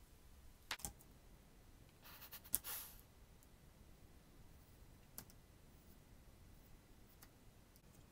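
Hair scissors snipping through a lock of hair in a few sharp clicks: a quick pair just under a second in, a louder cluster with a short rustle of hair about two and a half seconds in, then single fainter snips later.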